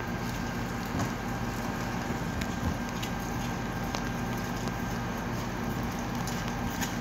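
Refuse collection truck's engine running steadily at idle, with rain pattering and a few scattered light knocks.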